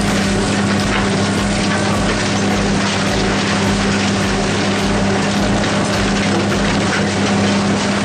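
A heavy machine running steadily, with a constant low hum under a dense, even noise.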